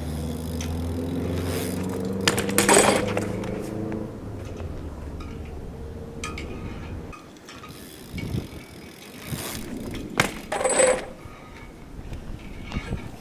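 BMX bike crashing down and clattering on asphalt after a bailed flat 360 attempt, loudest about two and a half seconds in, with a second burst of metal clanking about ten seconds in. A steady low hum runs under the first few seconds.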